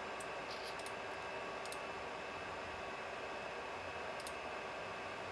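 Steady whir of the Supermicro SYS-E300-9D small server's cooling fans, with a few light mouse clicks, mostly in the first couple of seconds and once more about four seconds in.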